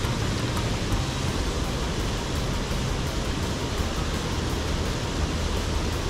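Water pouring over a small concrete weir into a stream pool: a steady, even rush with no pauses.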